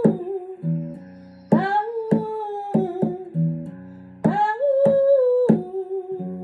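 A voice singing long wordless 'oh' notes over guitar chords. Two held, swooping vocal notes come in at about one and a half and four seconds in, between ringing chords.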